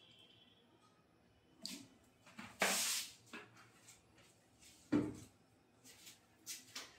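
Kitchen items being put down and picked up on a counter: a short scrape about two and a half seconds in, a sharp knock about five seconds in, and a few lighter clicks.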